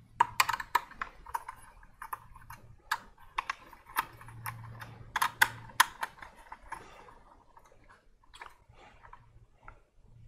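Irregular light clicks and taps of a screwdriver and a metal-cased 12 V switching power supply being handled, thick for the first six seconds and sparser after.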